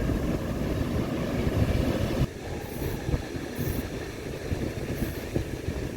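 Wind buffeting the microphone in a low, gusty rumble, easing a little about two seconds in.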